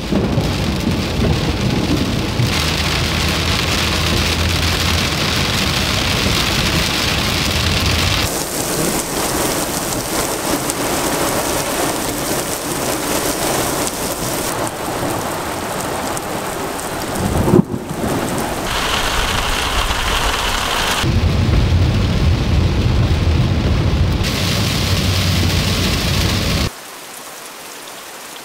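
Heavy rain with rolling thunder, deep rumbling at times and one sharp crack a little past halfway. Near the end it drops to a quieter steady patter of rain.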